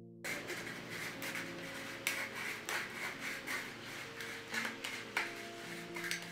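Scratchy, rubbing noise full of irregular crackling clicks, starting suddenly just after the start, over soft sustained music notes.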